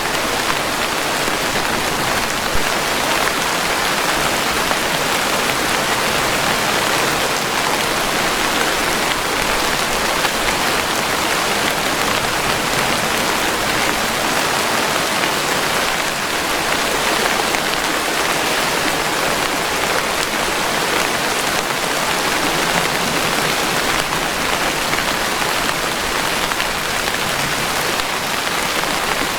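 Steady rain falling, an even hiss that never lets up.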